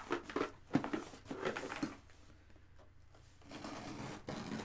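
Cardboard box being cut open with the edge of a ninja star: irregular scraping and crackling of the blade through tape and cardboard, with a sharp click about a second in, then a steadier rasping scrape near the end.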